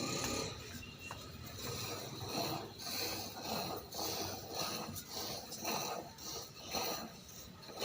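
Rhythmic rubbing or scraping strokes, about two a second.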